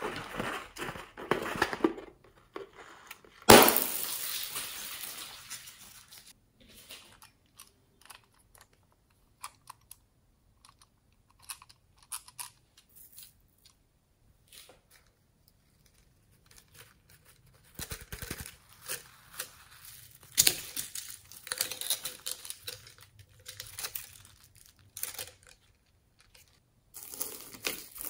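Polystyrene foam beads spilling onto fluffy slime in a glass dish: a sudden sharp sound about three and a half seconds in, then a couple of seconds of rattling spill. Sparse small ticks follow, then bursts of crackling and crinkling as more beads are added and fingers press into the beaded slime.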